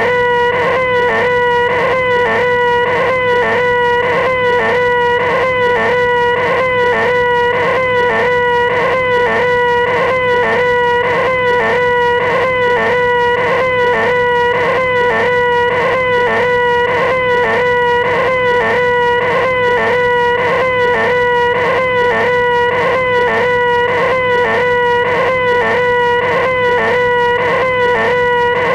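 A man's high, nasal, sustained "eeeeeh" shriek, the "most annoying sound in the world", held at one steady pitch without a break, with a quick regular wobble repeating through it like a looped clip.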